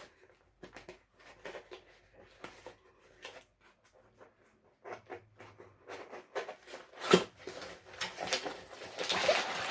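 Packaging being handled and opened by hand: scattered small clicks, taps and rustles, with a sharper click about seven seconds in and busier rustling near the end.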